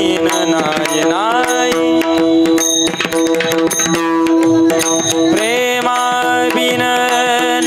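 Devotional Marathi abhang music: pakhawaj drum strokes under steadily held melodic notes.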